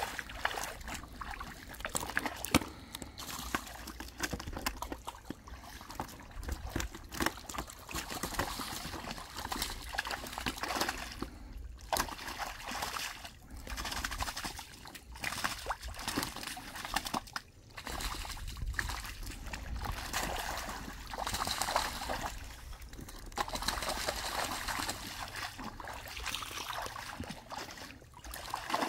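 Shallow muddy water sloshing and splashing in irregular bursts as hands and feet churn through it, grabbing at fish.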